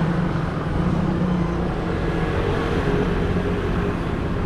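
Roadside traffic noise: a steady low hum of passing motor vehicles.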